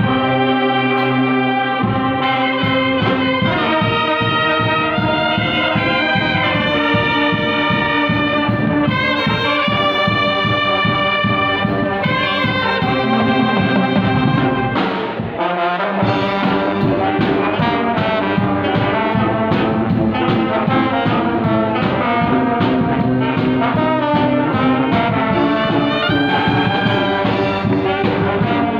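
A banda-style brass band playing live: sousaphones, trombones, trumpets, saxophones and clarinets together over a steady beat, with a brief break about halfway before the full band comes back in.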